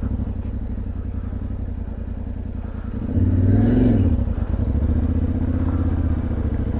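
Yamaha Tenere 700's parallel-twin engine running at low revs as the bike labours through deep snow ruts. About three seconds in there is a short rev that rises and falls.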